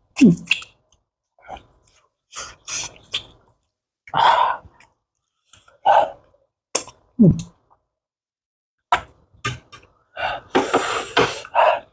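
A person's short wordless vocal sounds and breaths while eating food that is too hot: two sharply falling cries, scattered gasps, and a hissing breath near the end.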